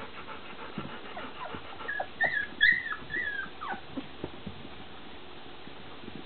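Golden retriever puppies whimpering: a cluster of short, high, wavering whines about two seconds in, with light scratching and knocking of paws against the wooden whelping box throughout.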